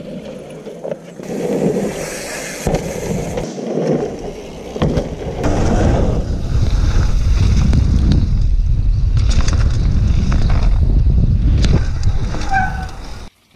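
Mountain bike descending fast on a dirt trail, heard from a helmet camera: wind buffeting the microphone and tyres rumbling over the dirt, with sharp knocks and rattles as the bike hits bumps. The rumble is heaviest in the second half and cuts off abruptly near the end.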